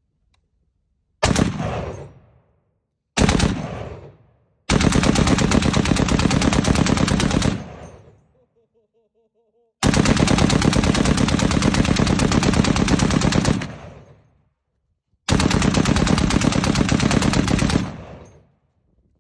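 Canik M2 QCB .50 BMG heavy machine gun firing full-auto: two brief bursts, then three long bursts of rapid shots lasting a few seconds each, every burst trailing off in echo.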